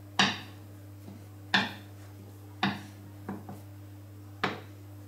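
Plastic rolling pin knocking against a granite worktop while rolling dough out thin: about six sharp knocks, unevenly spaced, the first two the loudest.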